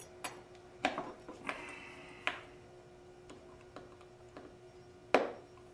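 Small metal clicks and scrapes as a retaining clip is worked onto the pin of a throttle lever with a hand tool, with a sharper click about five seconds in. A faint steady hum runs underneath.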